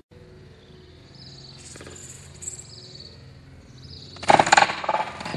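Faint outdoor background with high chirps, then about four seconds in a quick run of loud knocks and clatter as a person lands on and falls against a wooden-slatted metal park bench.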